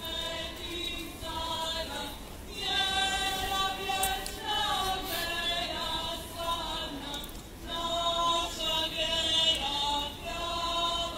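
A choir singing slow phrases with long held notes, with short breaks about two and seven and a half seconds in.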